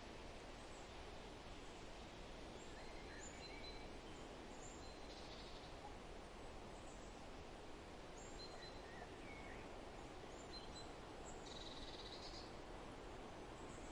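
Faint forest ambience: a steady background hiss with scattered short, high bird chirps, and a longer buzzy bird call near the end.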